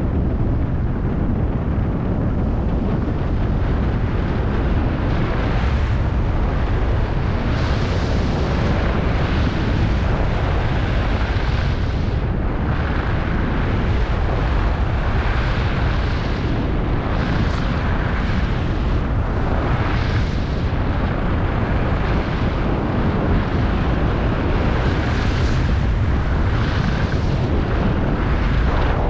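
Heavy wind buffeting on an action camera's microphone during a fast ski descent at about 40 to 60 km/h. The hiss of skis on groomed snow swells and fades every few seconds with the turns.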